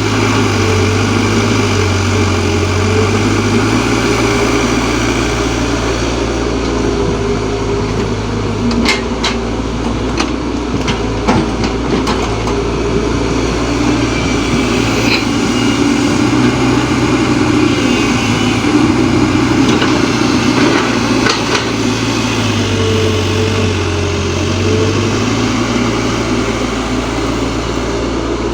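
Diesel engine of a Kobelco excavator running steadily, its pitch rising and falling as the machine works. Several sharp knocks come in a cluster about a third of the way in, with a few more later.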